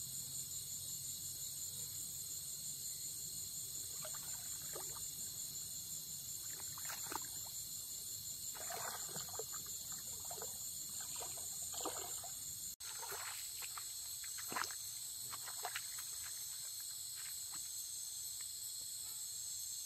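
Dense night chorus of crickets, a steady high-pitched trill, with irregular small splashes and sloshing of shallow water as someone wades and handles things in it. The sound briefly cuts out about two-thirds of the way through.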